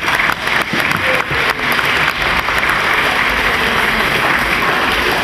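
A hall full of students clapping together in a sustained round of applause, starting suddenly and holding steady.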